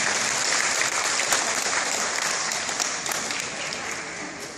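Audience applauding: dense clapping that holds steady, then dies away over the last second or so.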